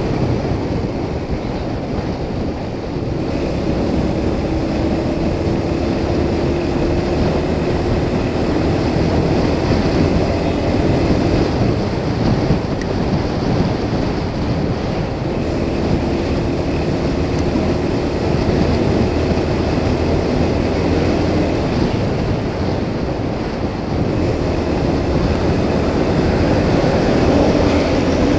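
Motorcycle riding at steady speed: engine hum under loud wind rush and tyre noise, the engine note drifting slightly up and down.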